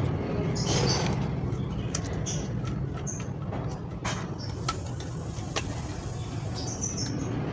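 Cheap aluminium tripod being handled and unfolded, its plastic head and legs giving a few sharp clicks, mostly in the second half. Underneath is a steady low hum.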